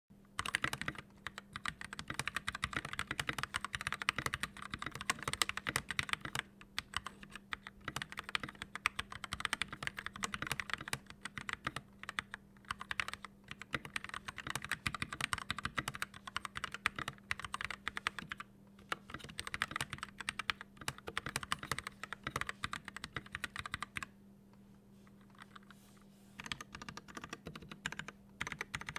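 Continuous fast typing on a Glorious GMMK mechanical keyboard with Gateron Yellow linear switches, the keystrokes giving a deep "thock". The typing stops for about two seconds near the end, then resumes.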